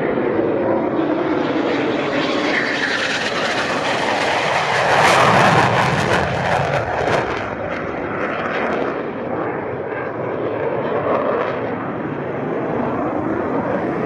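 Eurofighter Typhoon's twin EJ200 turbofan engines roaring as the jet makes a low, gear-down pass, loudest about five seconds in as it goes overhead. After that the pitch drops and the sound eases off as it flies away.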